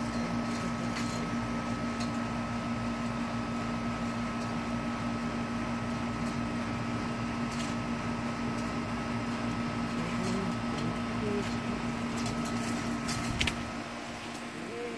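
Steady mechanical hum, a low drone with a thin higher whine over it and a few faint clicks; it cuts off after a sharp click near the end.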